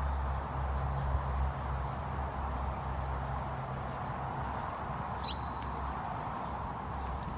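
A single high, steady whistled bird note, about half a second long, about five seconds in, over a steady low background hum.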